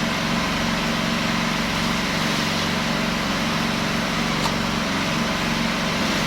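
Small single-cylinder four-stroke engine, the Honda GXH50 of a Mini-Striker portable fire pump, running steadily at an even speed.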